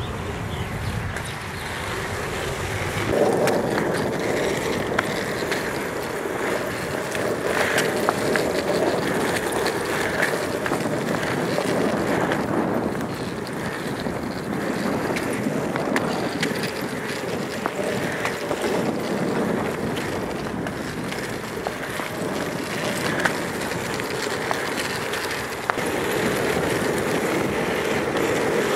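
Skateboard urethane wheels rolling on asphalt, a steady rumble that grows louder about three seconds in, with wind buffeting the microphone.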